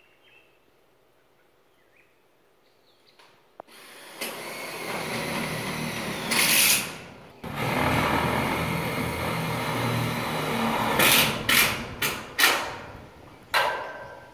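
Cordless drill driving screws through a metal roofing sheet into a steel carport frame. It starts about four seconds in with a long steady run of the motor, stops briefly, runs again, then gives several short trigger bursts near the end as the screws are seated.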